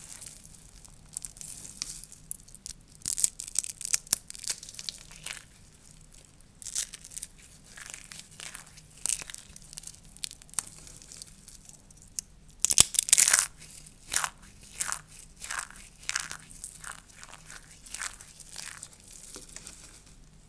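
Dry soap curls crunching and crackling as they are broken apart, in irregular crisp bursts, the loudest cluster about 13 seconds in.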